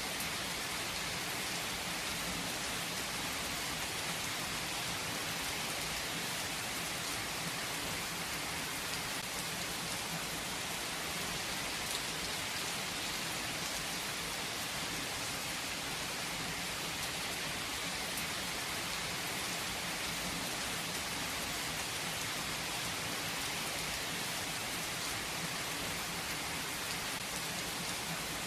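Steady rain falling, an even hiss with scattered individual drops.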